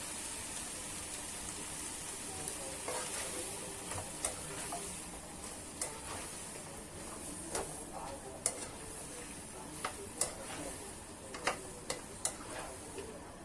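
Sliced celery and dried scallops sizzling steadily in a hot wok while being stir-fried, with irregular clicks and scrapes of a spatula against the pan from about two and a half seconds in.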